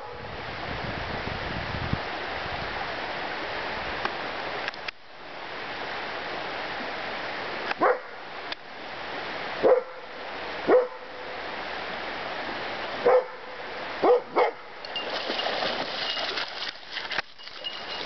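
A dog barking, six short barks in the second half, over the steady rush of a shallow river. The barking is excitement at pink salmon running in the water.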